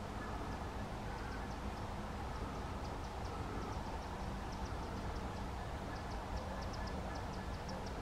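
Outdoor ambience: a steady low rumble and hiss, with a run of short, high-pitched ticks in small groups that grow more frequent and louder toward the end.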